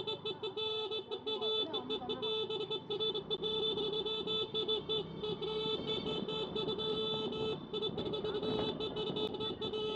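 Scooter's electronic horn sounding almost nonstop, a steady buzzing tone with a rapid flutter and a brief break about seven and a half seconds in.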